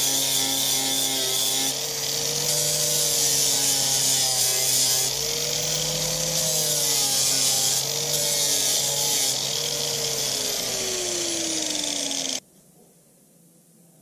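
Electric angle grinder with a sanding disc, held against the steel lower body panel of a Volkswagen T3 van and grinding off paint and rust. Its whine dips and recovers as the disc is pressed against the metal and falls in pitch over the last couple of seconds, then the sound cuts off abruptly about twelve seconds in.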